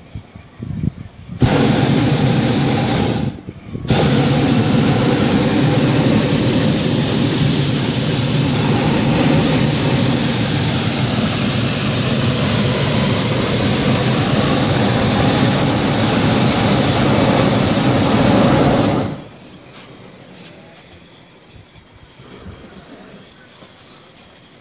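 Hot-air balloon's propane burner firing: a short blast of about two seconds, a brief break, then a long steady burn of some fifteen seconds that cuts off suddenly.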